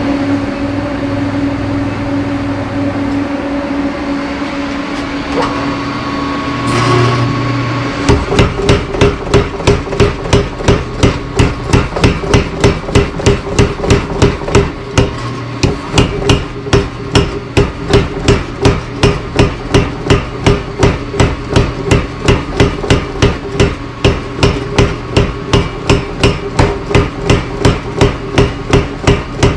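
A 70 lb Clay Spencer tire hammer, a treadle-run power hammer with an electric motor. The motor runs steadily at first, then about eight seconds in the ram starts striking in a steady rhythm of about two blows a second.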